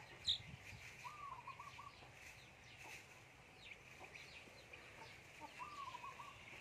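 A hen and her chicks calling faintly while pecking at rice. A short call with a few quick trailing notes comes three times, a few seconds apart, amid thin high chick peeps, one louder peep just after the start.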